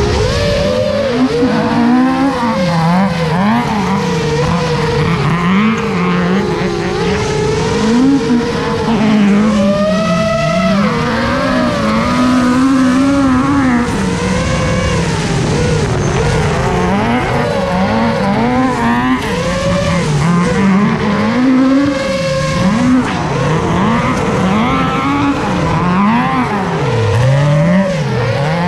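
Loud, constant motor noise whose pitch rises and falls quickly and unevenly, with no let-up, as throttle is pushed on and off again and again.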